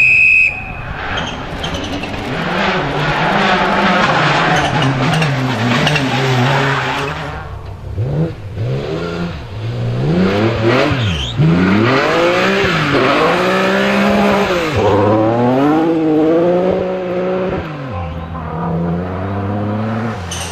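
Rally car engine at full throttle, its revs climbing and then dropping sharply again and again as the driver shifts gear and lifts for corners. A short, loud high tone sounds at the very start.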